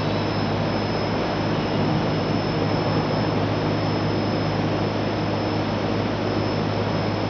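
Hydraulic press brake's power unit running: a steady hum from the electric motor and hydraulic pump, with a faint steady high whine over it.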